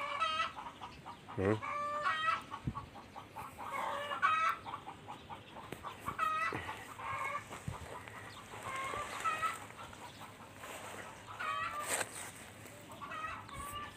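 Chickens clucking, short runs of calls that come again every second or two.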